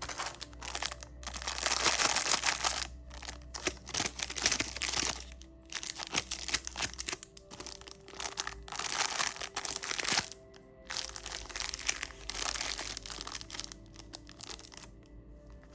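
Lollipop wrappers crinkling and crackling as candy is unwrapped, in repeated bursts about every two seconds, with soft background music underneath.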